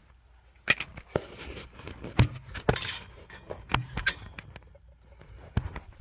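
Gas boiler, described as cracked, giving irregular sharp metallic clicks and knocks, about seven in six seconds, over a low hum.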